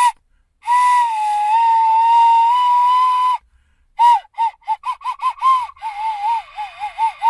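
Cheap red plastic recorder being blown by a beginner, high and breathy: one long wavering note held for about three seconds, then, after a brief break, a quick run of short tongued notes around the same pitch, with another held note starting near the end.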